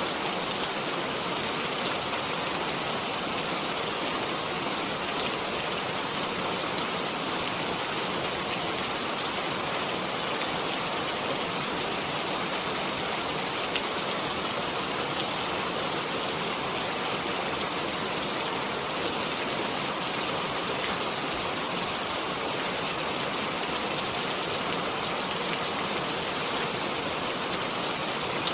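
Steady rain falling, an even hiss of many drops with faint scattered drop ticks and no let-up.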